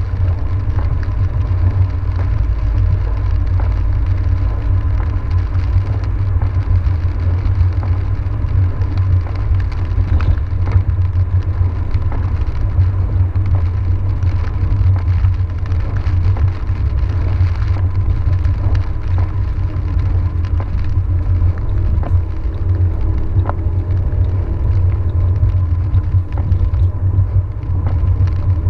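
Car driving on a wet road, heard from inside the cabin: a steady low rumble of engine and tyre noise, with a faint steady high tone and scattered faint ticks.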